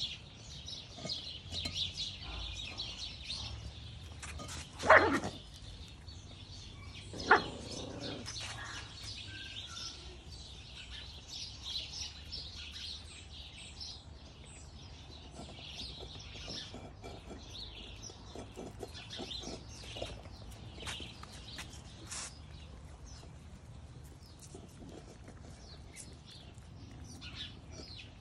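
Miniature schnauzer puppies crowding a food bowl, with two short, loud puppy barks about five and seven seconds in. Birds chirp steadily throughout.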